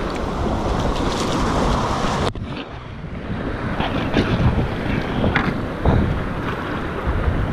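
Rushing river whitewater with wind buffeting the microphone. The noise drops suddenly about two seconds in, then kayak paddle blades splash into the water a few times.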